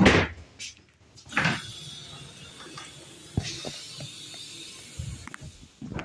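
Automatic sliding gangway door of a passenger railway coach, opening with a loud whoosh and clatter, then a second swish about a second and a half in. A steady hiss follows, with a few light knocks.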